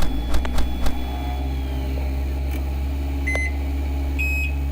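A steady low hum with a few sharp knocks in the first second, then two short electronic beeps, the second higher than the first.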